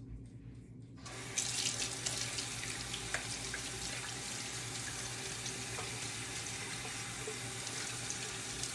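Kitchen faucet turned on about a second in, then water running steadily into the sink as hands are rinsed under it.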